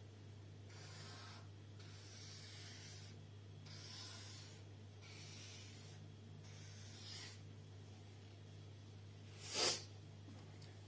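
Broad 17 mm chisel-tip felt marker dragged across paper in about five strokes, each a soft scratchy hiss, over a low steady hum. A short, louder noisy burst comes about nine and a half seconds in.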